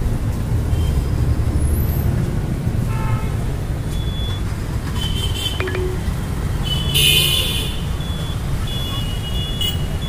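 Road traffic with motorbikes and auto-rickshaws, running as a steady rumble. Short horn toots come about three seconds in and again around five and seven seconds, the loudest near seven. A string of short, high, evenly repeated beeps follows near the end.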